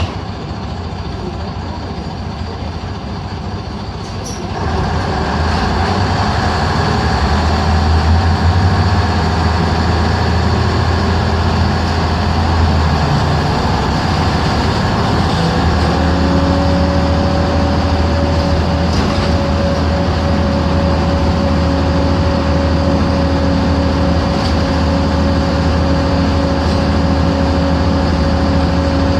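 LiAZ-5256 city bus running, heard from inside the cabin, its YaMZ-236 V6 diesel and road noise steady. The engine gets clearly louder about four seconds in. From about halfway on, a steady whine of a few held tones runs under the engine noise.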